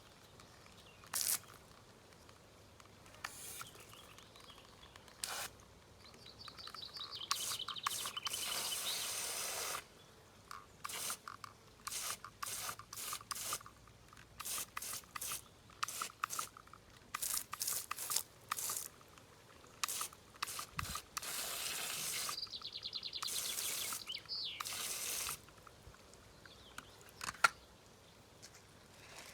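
Irregular short crunching, tearing and rustling sounds of plants being handled in a garden, with two longer rustling stretches. A bird chirps twice, once near the start of the rustling and again about three-quarters of the way through.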